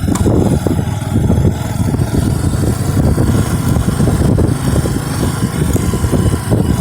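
Motorcycle engine running steadily while riding, a dense rough rumble.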